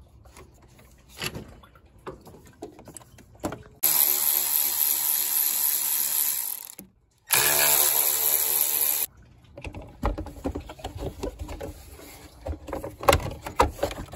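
Cordless power tool spinning a socket to back out the fan shroud and radiator bracket bolts, running in two bursts of about three and two seconds with a brief stop between. Metal clinks and knocks follow as the parts are handled.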